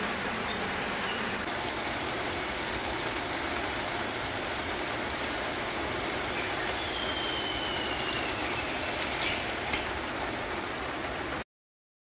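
A steady rushing hiss with a few faint ticks, which cuts off suddenly near the end.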